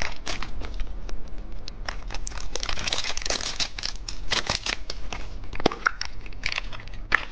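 Plastic candy packaging being crinkled and torn open, an irregular run of crackles, densest around three seconds in.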